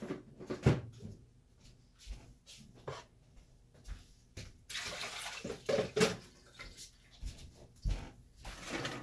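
Scattered knocks and bumps of someone moving about a kitchen, with a rushing hiss lasting about a second and a half near the middle.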